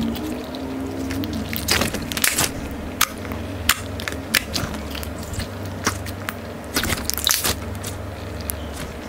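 Slime being squeezed and pressed by hand, giving irregular sharp crackling pops and crunches, some in quick clusters, over a steady low hum.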